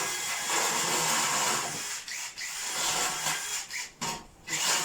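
Power drill running in several bursts of one to two seconds with short pauses between, as holes are drilled or screws driven to mount the fan.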